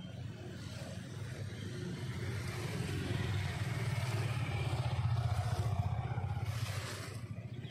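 A motor engine passing by, with a low rumble that grows louder to a peak a little past the middle and fades near the end.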